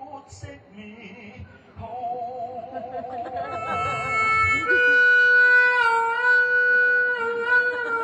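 Amplified singing into a microphone, starting about two seconds in with a long wavering held note, then sustained steady notes with music underneath that change pitch a few times.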